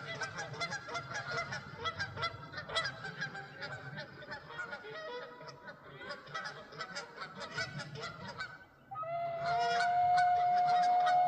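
A flock of birds calling over one another in a dense, continuous chorus of short calls. About nine seconds in, after a brief lull, a loud steady tone begins and is held to the end.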